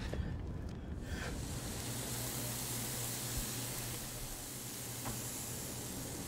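A few light clicks, then from about a second in a steady hiss with a low hum underneath.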